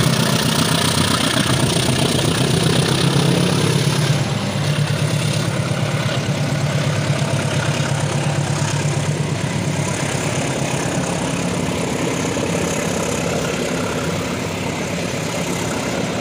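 Diesel locomotive's engine working hard as the train pulls away up a grade, a deep steady drone that eases a little about four seconds in and then slowly fades as the coaches roll past.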